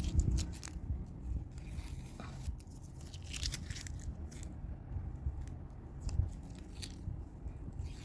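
Painting on a small canvas: a run of dry, crisp scratching and tapping strokes over a low handling rumble.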